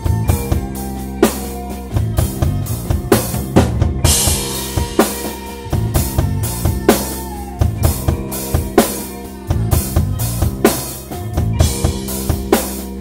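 Instrumental rock jam by a guitar, bass and drums trio: a drum kit keeps a steady beat on bass drum and snare under electric bass and a bending electric guitar line, with a cymbal crash about four seconds in. No vocals.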